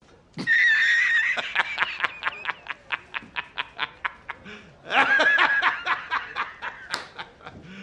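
A man laughing hard: a long high-pitched wheezing burst, then rapid cackling pulses, rising into a second high burst about five seconds in and breaking into quick cackles again.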